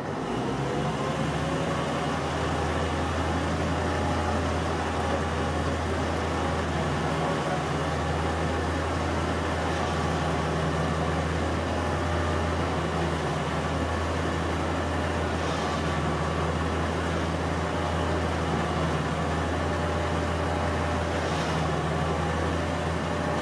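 Electric Ramsey winch motor on a Dodge M37 wrecker running steadily, reeling in cable to lift the boom's tow sling. It starts abruptly and keeps an even, loud drone.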